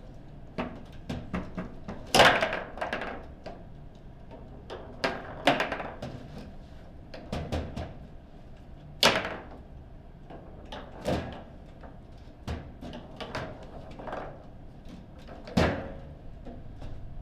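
Table football being played: the ball knocking against the plastic players and the table's walls, and the rods clacking, in an irregular string of sharp knocks with a few much louder hits.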